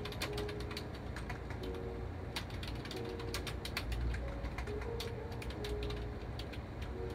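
Typing on a compact keyboard with round keycaps: a quick, irregular run of key clicks and taps.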